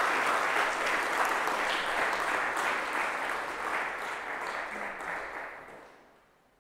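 Audience applauding, dense clapping that dies away near the end.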